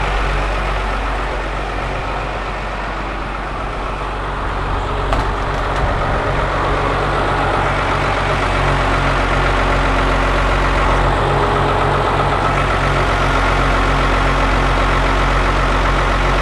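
An engine or motor running steadily at idle, with a low hum and a slow, regular throb.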